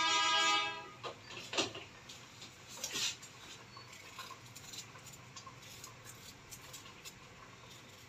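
A horn sounding once, loud and steady for about a second, followed by a few light knocks.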